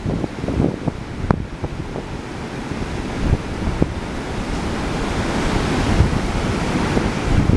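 Ocean surf washing onto the beach, the hiss of breaking water swelling over a few seconds, now a calmed-down, normal surf after the storm. Wind gusts buffet the microphone with a low rumble.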